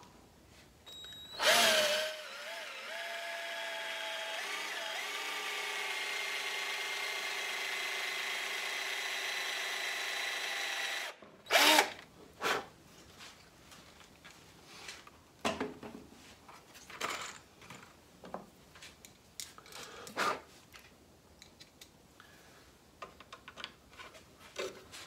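Power drill driving a Forstner bit into hard reclaimed elm to bore a pocket hole by hand. It runs with a steady whine for about nine seconds and then stops abruptly. Short knocks and clicks of handling follow.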